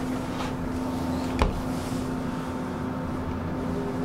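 Light rail train running: a steady electric hum over the rumble of the car on the track, with a single sharp click about one and a half seconds in.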